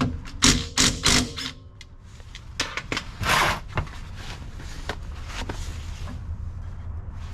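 Metal hand tools clanking and knocking on the rear differential while its fluid is drained. Several sharp, ringing clanks come in the first second and a half, then a few more knocks and a longer scraping rush about three seconds in.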